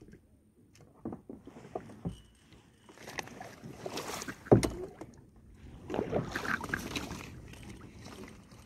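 Knocks and water splashing around a kayak, with one loud thump about four and a half seconds in.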